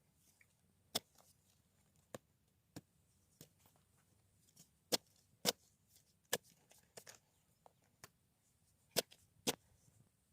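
A series of about a dozen sharp knocks at uneven intervals, the loudest near the middle and near the end.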